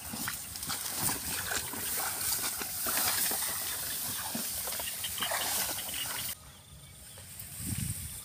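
Dense rice stalks and tall grass rustling and swishing against bodies and the camera as people push through on foot, with small crackles and snaps. The noise drops suddenly about six seconds in.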